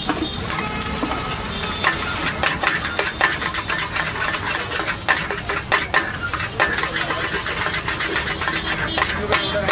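Metal spatula scraping and clacking against a black wok as a cook stirs frying food, with a steady sizzle underneath.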